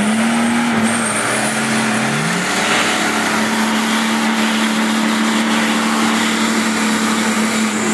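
Nissan Patrol's engine revs up quickly and is then held at steady high revs under load, with a constant rushing noise over it.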